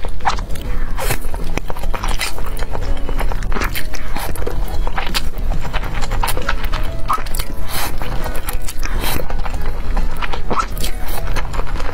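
Background music with held notes, loudest in the mix, over close-miked slurping and chewing of thick, sauce-coated noodles.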